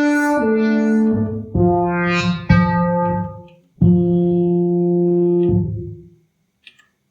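Electronic home keyboard playing a preset instrument voice: a few short notes stepping down, then two or three long held notes that ring and die away, silent for the last second.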